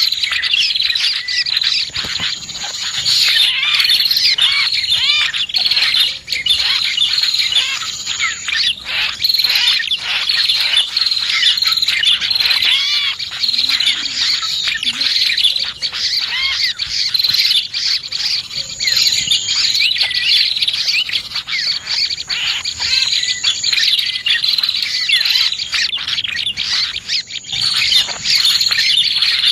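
Prinias (prenjak) and other small birds calling together, played as a bird-luring (pikat) call: a dense, continuous stream of rapid high chirps and trills, with a thin, higher whistle that comes back every few seconds.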